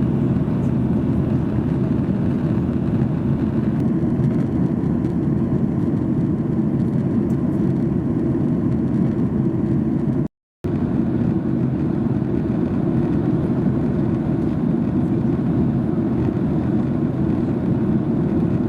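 Steady low drone of a Boeing 737-800's engines and airflow heard inside the cabin after take-off. The sound cuts out completely for a moment about ten seconds in.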